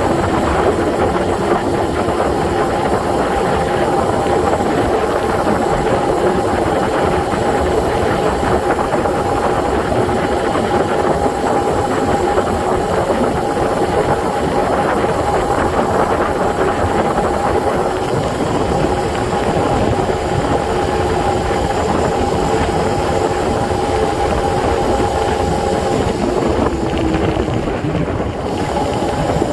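Electric motor of a Razor 750 W e-bike whining steadily under way, several steady tones over a loud rush of wind and tyre noise. Near the end the whine falls in pitch as the bike slows.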